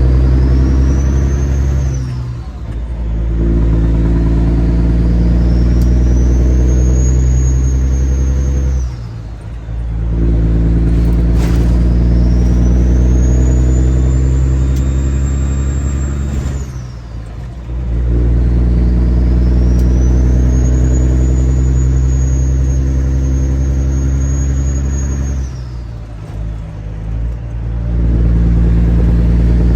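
Kenworth W900 semi truck's diesel engine running hard with a high turbo whistle that rises and then holds. The engine and the whistle drop off briefly about every eight seconds (three times), and the whistle climbs again each time the engine comes back.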